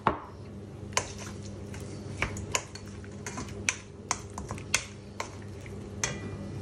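Wooden spoon knocking and scraping against a stainless steel bowl while sliced pork sausage is tossed in a wet dressing: a dozen or so irregular clicks and knocks, the sharpest right at the start and about a second in.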